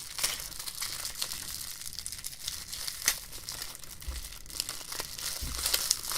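Crinkling and rustling of the pencil's packaging being handled, with irregular small clicks.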